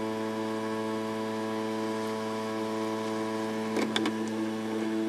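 Handheld hot air gun's blower running with a steady, even hum. A brief clatter of handling about four seconds in.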